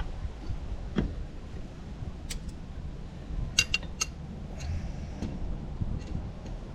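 Light metallic clinks and taps as metal plumbing fittings and tools are handled, a handful of separate sharp strikes over a low steady hum.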